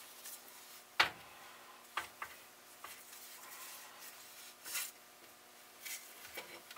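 A sharp knock about a second in, then a few lighter clicks and short rubbing sounds: parts and tools being handled on a workbench.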